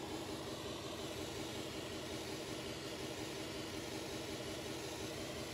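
Periodic pink noise test signal playing steadily from a floor-standing tower speaker, a continuous even hiss. It is the calibration signal for a moving-mic measurement of the front right speaker.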